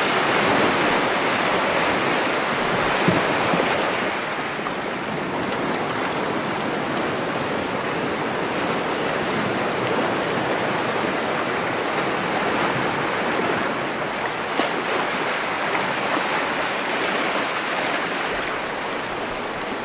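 River rapids rushing around a boat running through whitewater: a steady, loud rush of water, a little louder for the first four seconds, with a couple of brief knocks.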